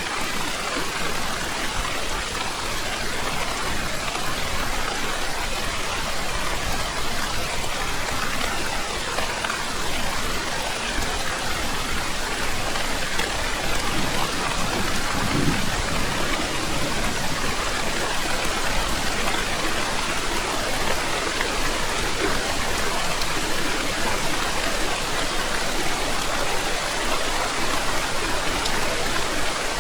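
Steady heavy rain, a dense, even hiss of falling drops with no break or change.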